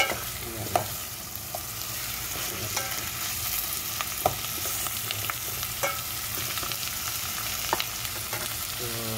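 Chicken pieces with onion, garlic and ginger sizzling in oil in a nonstick pot as a spatula stirs them. Steady frying hiss, with irregular clicks and scrapes of the spatula against the pot.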